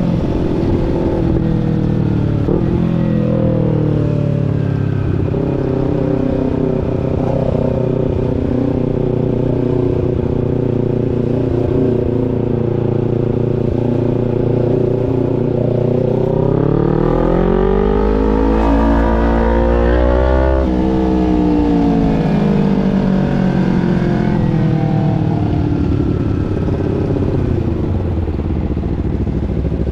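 250 cc parallel-twin sport motorcycle engine heard from the rider's seat, running at steady revs, then revving up about sixteen seconds in, shifting gear with a sudden drop in pitch around twenty seconds, and easing back off to steady cruising.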